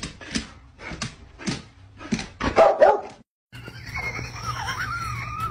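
Dog sounds: a series of short clicks and knocks, and a louder short vocal sound about two and a half seconds in. After a brief break a dog whines in one long, wavering high tone.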